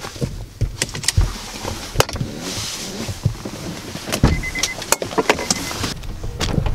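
A car door being handled: a string of clicks and knocks from the handle, latch and door panel, with rustling, and a faint high beeping a little past the middle.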